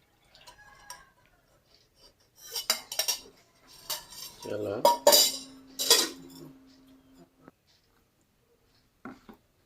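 Metal kitchen utensils and pans clattering and clinking, a few sharp knocks in a row, one leaving a short metallic ring.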